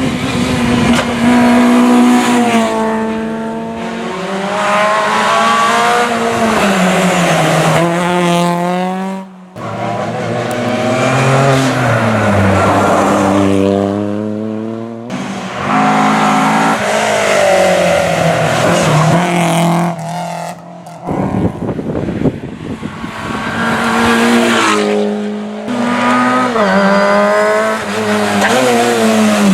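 Rally car engines at full throttle, revs climbing and dropping sharply through quick gear changes as several cars go past one after another.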